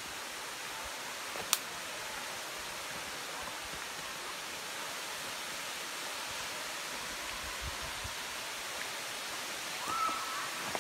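Steady rushing hiss of a waterfall. A single sharp click comes about a second and a half in, and a brief high whistled note sounds near the end.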